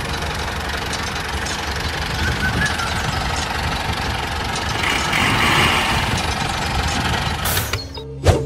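A DIY mini tractor-and-thresher model's small motor running with a steady, dense rattle. It cuts out about a second before the end, where music comes in.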